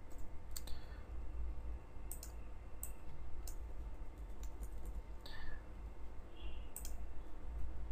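A few scattered sharp clicks of a computer mouse and keyboard during code editing, over a steady low hum.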